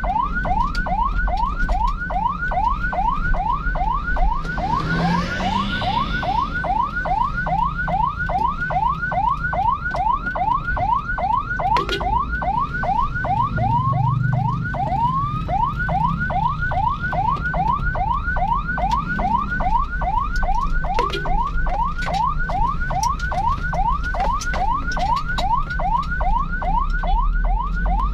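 Emergency-vehicle electronic siren in a fast yelp, rising sweeps repeating about three to four times a second without a break, over a steady low rumble of traffic or engine.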